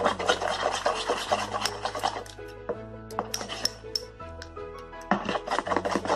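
Slime being stirred in a bowl, a utensil scraping and rubbing against the bowl in quick strokes through the first half and again near the end, as the activator is worked in. Background music plays throughout.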